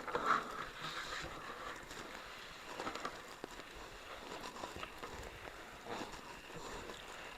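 Faint handling noise: light clicks and rustling as a plastic car taillight is held and moved by hand, with a slightly louder click about a third of a second in.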